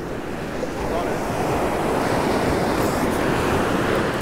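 Surf breaking and washing up a sandy beach, a steady rushing that grows a little louder about a second in, with wind buffeting the microphone.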